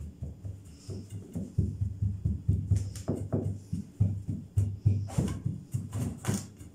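Hands pressing and patting shredded kunafa dough firmly down into a round metal baking tray to form the base layer: a quick, irregular run of soft thumps with light rustling of the dough strands, and a few sharper taps about five to six and a half seconds in.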